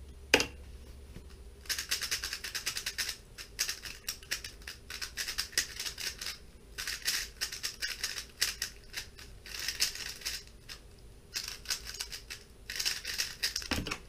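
Weilong GTS 3x3 speedcube being turned fast: runs of clacking plastic turns broken by short pauses, from a cube that is not very well lubricated. A single sharp knock sounds just after the start and a low thump right at the end.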